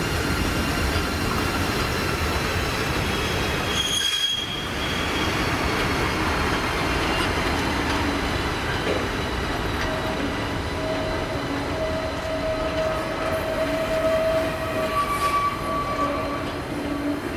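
A pair of coupled SBB electric locomotives running past, wheels rumbling over the rails. From about ten seconds in, the wheels squeal steadily on the curving depot track.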